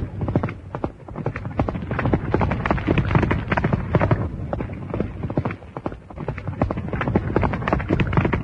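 Hoofbeats of horses galloping, a fast, dense clatter.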